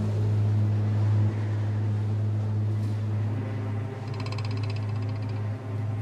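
A steady low hum runs throughout. About four seconds in, a rapid, high-pitched buzzing joins it and stops about a second and a half later.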